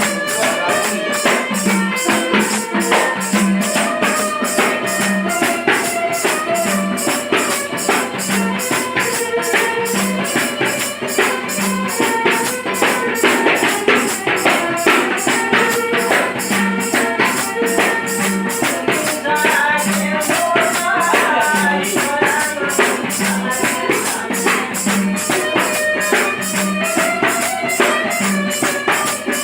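Bengali Baul folk music: a fast, steady jingling percussion beat, like a tambourine or hand cymbals, under a winding melody.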